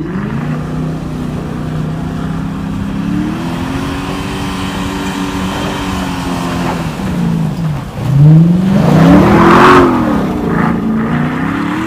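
Land Rover Defender 90 engine revving hard while the vehicle spins circles in snow. The pitch holds, dips, then drops low about eight seconds in and climbs sharply to its loudest, with tyres churning through the snow.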